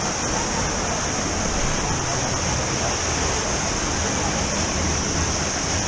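Steady rushing noise of falling water from a waterfall, even and unbroken throughout.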